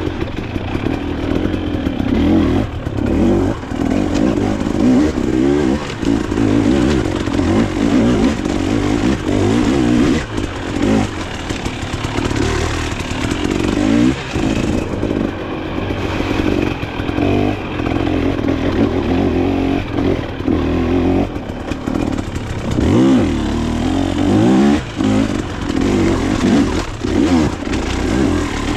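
Dirt bike engine being ridden, revving up and dropping back again and again as the throttle is worked.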